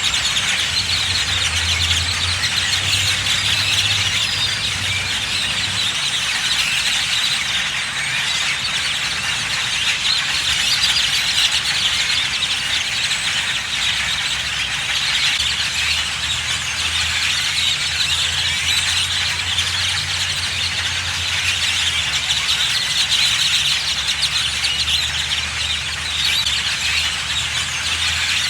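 Dense, continuous chatter and squeaking of a very large flock of birds calling all at once. A low engine hum comes and goes underneath.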